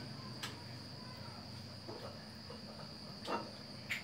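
A steady high-pitched whine with a few light knocks, the loudest about three seconds in.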